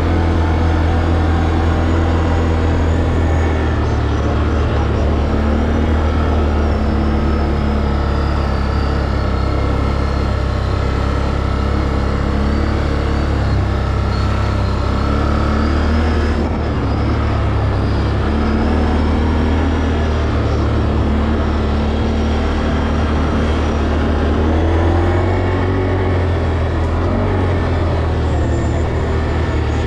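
Can-Am Outlander 800 Max XT ATV's V-twin engine running steadily under way, its pitch slowly falling and rising with the throttle.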